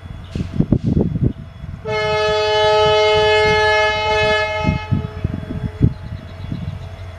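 WDP-4D diesel locomotive sounding its horn: one long, loud chord-like blast of about three seconds, starting about two seconds in, over the low rumble of the approaching train, with low thuds before and after.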